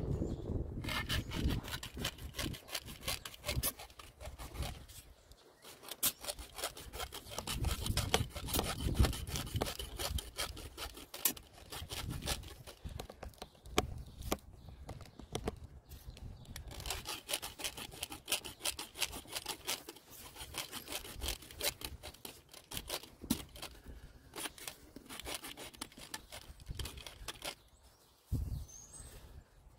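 Small hand saw rasping in quick, steady back-and-forth strokes, stopping briefly a few times between runs.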